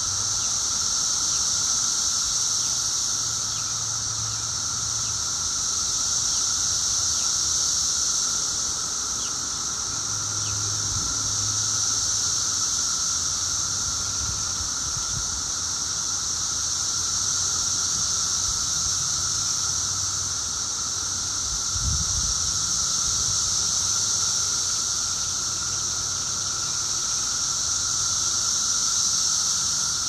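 Massed chorus of 17-year periodical cicadas: a loud, steady, high-pitched drone that swells and eases slowly every several seconds, the chorus at its peak about two weeks after emergence.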